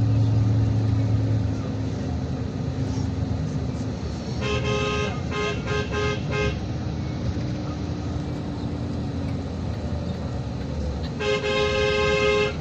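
Vehicle horn honking: a quick series of several short toots about four seconds in, then one long blast near the end, over steady engine and road noise.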